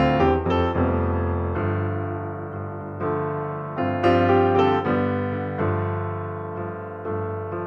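Slow solo piano music: notes and chords struck every second or so, each left to ring and fade.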